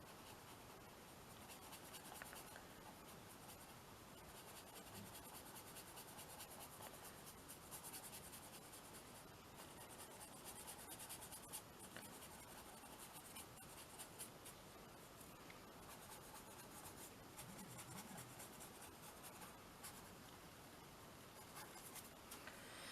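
Faint, steady scratching of drawing strokes on paper, like a pencil or crayon tip, as small flowers are drawn.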